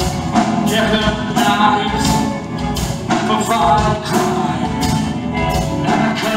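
Live band playing loudly through a PA: a male singer singing into a microphone over electric guitars and drums.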